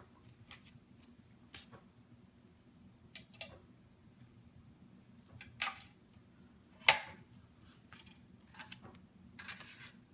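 Light clicks, taps and paper rustling from handling a doll-size toy desk and its paper inserts while it is being set up. There is one sharp, loud click about seven seconds in and a brief rustle near the end.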